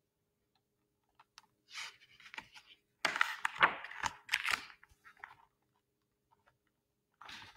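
Pages of a large hardcover picture book being turned and handled: a few soft rustles, then louder paper swishes for about two seconds.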